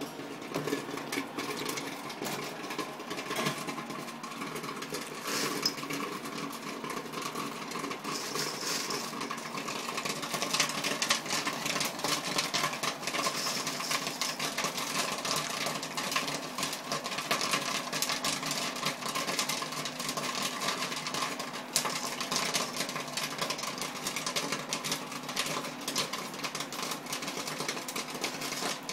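Commercial popcorn machine popping a batch of corn in its kettle: a dense, rapid crackle of pops over the steady hum of the machine's motor, the popping growing denser about ten seconds in.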